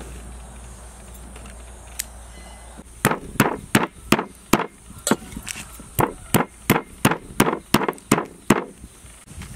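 A quick, even run of sharp chopping knocks on a thick wooden chopping board, about fifteen strikes at roughly three a second, starting about three seconds in and stopping shortly before the end.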